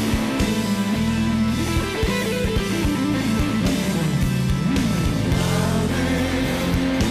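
Blues-rock band playing a slow instrumental passage: an electric guitar lead sustains and bends notes over bass and drums.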